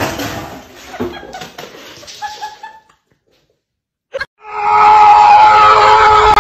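Laughing in the first half, then a short silence. About four and a half seconds in, a loud cry starts, held on one pitch.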